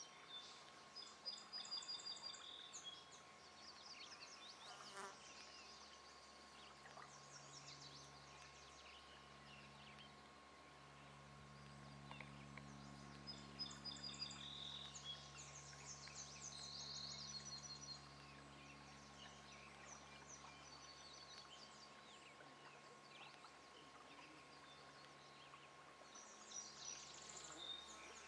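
Faint birds chirping in short repeated phrases, with a low insect buzz, like a fly's, that comes and goes through the middle.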